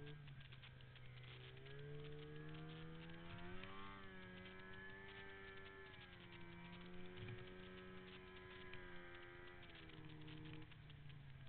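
Arctic Cat M8 snowmobile's two-stroke twin engine running under throttle in deep powder, heard faintly. Its revs climb in steps over the first few seconds, hold, and drop back near the end.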